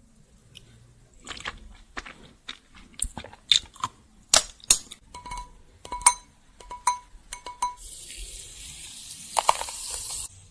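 A run of sharp clicks and clinks of tableware, several of them ringing briefly like a utensil tapping a dish or glass. Near the end comes about two seconds of steady high hiss that cuts off suddenly.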